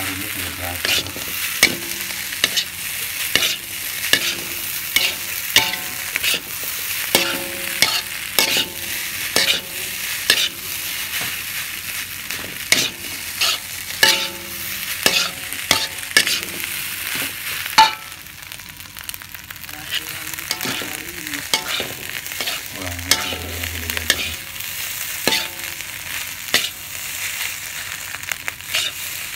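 Fried rice sizzling in a hot wok while a metal spatula stirs and tosses it, scraping and knocking against the pan many times. The strokes ease into a short lull about two-thirds of the way through, then pick up again.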